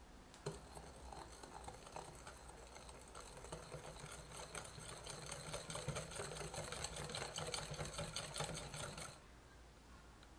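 Wire balloon whisk beating a thin liquid batter in a glass mixing bowl: a rapid, even clatter of the wires tapping and scraping against the glass, with light sloshing, stopping near the end.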